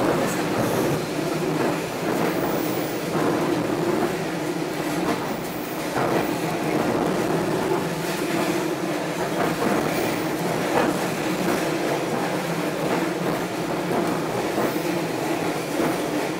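Passenger train running at speed, heard from on board: a steady rumble of wheels on the rails, with occasional clacks over the rail joints.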